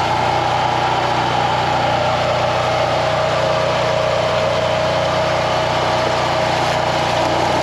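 An engine running steadily at a constant speed, with a steady whine above its hum that sinks slightly in pitch over the seconds.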